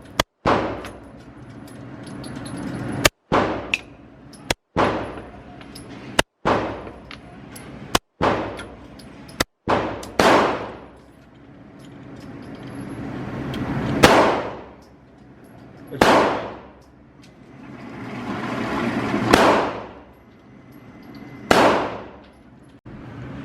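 Single shots from a 9mm handgun, about eleven of them, fired at irregular intervals one to four seconds apart. Each shot cracks sharply and rings out in a reverberant tail, and the audio briefly drops out around several of the shots.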